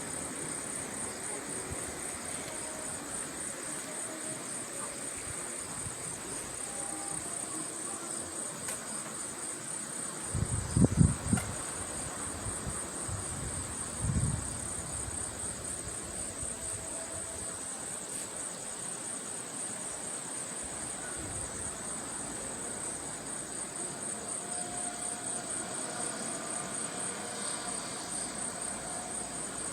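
Steady night chorus of crickets, a fast high-pitched pulsing trill. About eleven seconds in, and again about three seconds later, come two brief low rumbles, the louder first.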